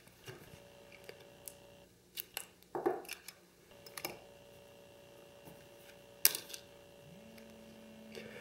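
A few faint, scattered small plastic clicks and taps from handling a BlackBerry Pearl phone and its keypad, the sharpest about six seconds in, over a faint steady hum.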